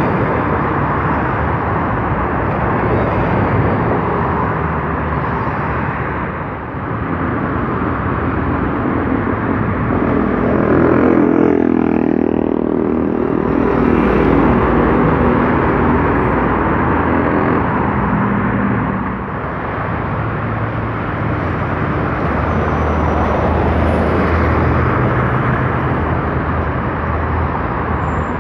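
Steady multi-lane road traffic with city buses and cars passing close by. About halfway through, an articulated city bus goes right past, loudest as it passes, its engine note dropping as it moves away.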